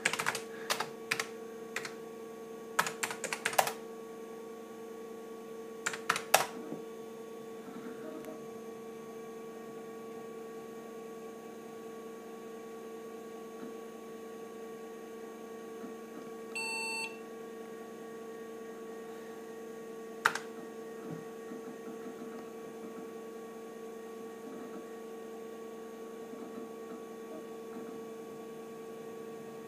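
Keystrokes on an IBM PC XT keyboard: a few quick runs of clicky key presses in the first seconds and again about six seconds in, a single key press about 20 seconds in. A short beep sounds about 17 seconds in, over the steady hum of the running computer.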